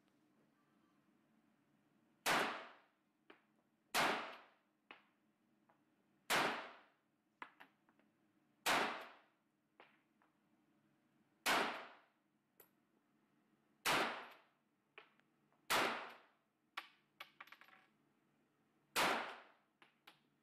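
Firearm fired in single shots, eight in all, a second and a half to three seconds apart, each shot ringing out briefly, with small metallic clicks and clinks between shots.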